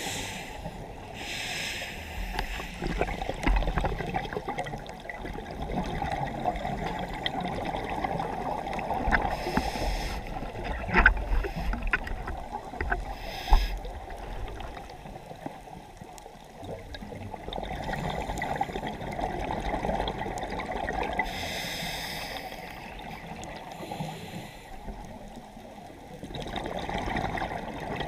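Underwater ambience heard through a camera housing while swimming along a reef: a steady low rushing of water, with a few sharp clicks around the middle and several brief hissing surges.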